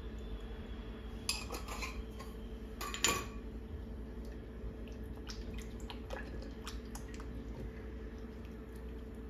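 Spice jar and spatula knocking against a pot of beans during seasoning and stirring: a cluster of sharp clinks just over a second in, the loudest clink about three seconds in, then lighter taps, over a low steady hum.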